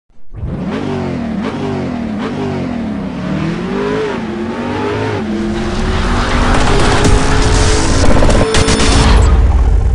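Car engine revving, its pitch rising and falling several times, then a louder sustained run with tyre-screech noise that cuts off abruptly about nine seconds in.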